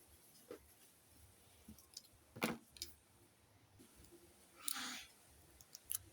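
Crafting handling sounds while making a homemade squishy: a few small clicks and taps, a sharper knock about two and a half seconds in, and a brief rustling scrape near five seconds.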